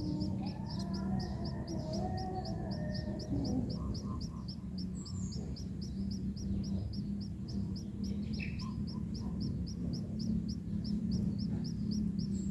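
Munias chirping: a fast, even run of short high chirps, about six a second, over a steady low hum.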